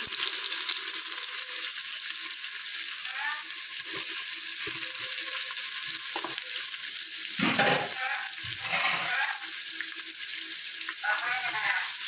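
Sliced onions sizzling steadily as they fry in hot oil with whole spices in an aluminium pressure cooker, stirred with a spatula near the end.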